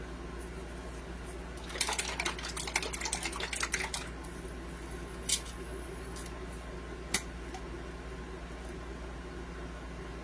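A plastic fruit-yogurt cup being handled and opened: about two seconds of rapid crinkling and crackling, then two single sharp clicks, over a steady low hum.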